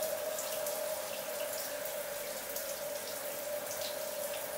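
Shower running: a steady hiss of water with a steady tone running through it, and a few faint drips and splashes.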